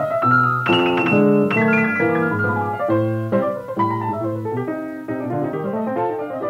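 Background piano music: a flowing run of struck notes and chords.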